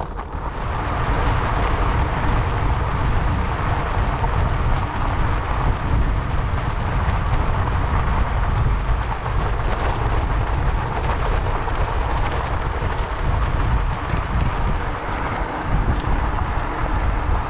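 Steady wind noise buffeting the microphone over the rumble of bicycle tyres rolling on a sandy dirt trail.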